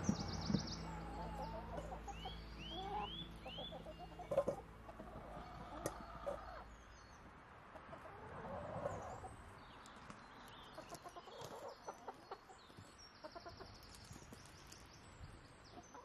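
Domestic hens clucking softly, with wild birds chirping and scattered light knocks of potatoes being set into a plastic wheelbarrow.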